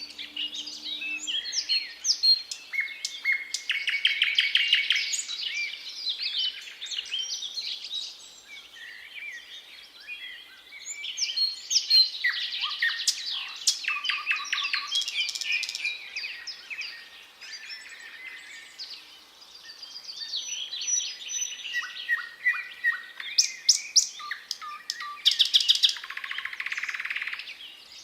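Thrush nightingale singing: three long song phrases of rapid repeated notes, trills and clear whistles, with short pauses between them.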